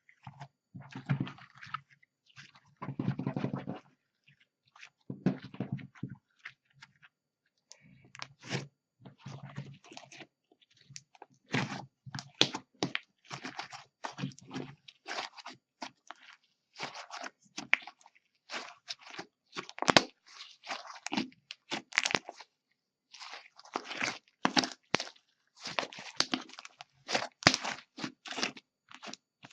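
Slime with clay worked into it being squeezed and kneaded by hand: irregular bursts of sticky crackling and squishing, softer and lower at first, then denser, brighter crackles from about a third of the way in.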